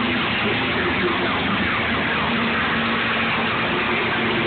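Engines of a pack of old sedans racing around an oval track: steady, loud, overlapping engine noise with no single car standing out.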